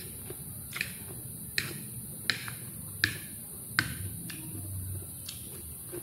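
Metal fork tines clicking against a plate while picking up cucumber salad: about seven sharp, short clicks at uneven spacing, roughly one a second, loudest about three seconds in.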